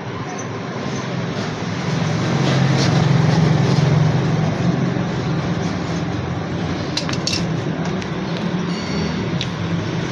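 A motor vehicle engine running steadily, swelling a little a couple of seconds in, with a few sharp clicks about seven seconds in.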